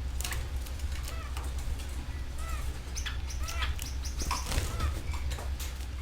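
Canaries chirping with short, arched call notes repeated several times, mixed with wing flutters and sharp clicks, over a steady low hum.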